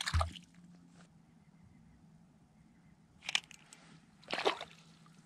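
Three brief crunches of ice slush: one at the start with a dull thump, and two more about three and four seconds in.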